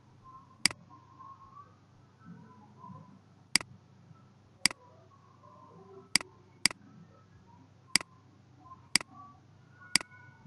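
Computer mouse button clicking eight times at irregular intervals while selecting properties and picking from a dropdown list, over a faint low hum.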